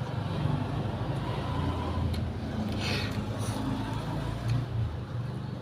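Low, steady engine rumble of a motor vehicle running, with a short hiss about three seconds in.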